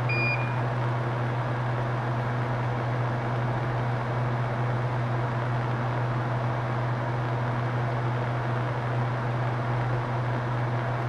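Bench fume extractor fan running steadily, a low hum under an even rush of air. A short electronic beep sounds just after the start.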